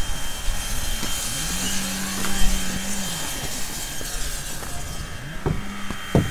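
Narrow-gauge steam locomotive hissing steam, with a low steady whistle sounded twice: once for about a second and a half, and again near the end. A few sharp knocks come with the second blast.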